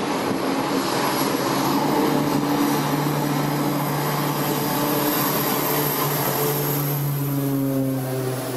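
Propeller engines of low-flying twin-engine amphibious water-bomber planes droning steadily as they skim the water to scoop, over a steady hiss.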